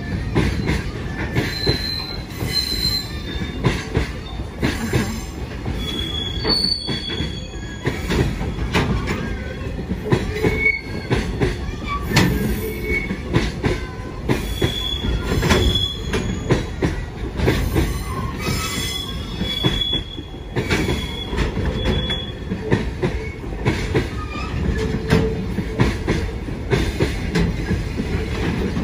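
JR Freight container train rolling past: a steady rumble of steel wheels on the rails with irregular clicks and knocks from the passing wagons, and brief high squeals now and then.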